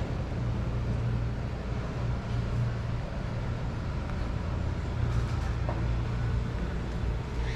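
Steady low hum of a motor vehicle engine running close by, over general street noise.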